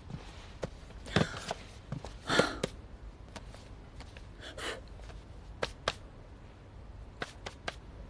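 Books being handled: a few short rustles of pages and paper, with a scatter of sharp light knocks and clicks as books are picked up and set down.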